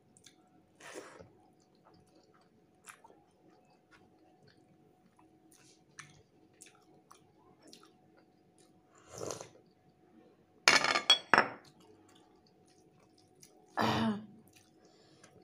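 Close-up eating sounds of rice and fish curry eaten by hand: quiet chewing and soft hand-mixing noises, broken by a few short louder noises, the loudest a close pair of knocks about two-thirds of the way through.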